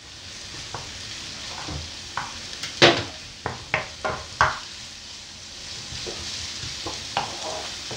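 Chopped onion and freshly added garlic sizzling in oil in a nonstick frying pan, the onion already softened. A wooden spoon stirs and scrapes through it, knocking against the pan a dozen or so times; the sharpest knock comes about three seconds in.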